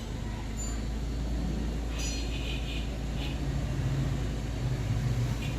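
Mini Cooper R56 engine idling with a steady low rumble, shortly after being started for DSC sensor diagnosis.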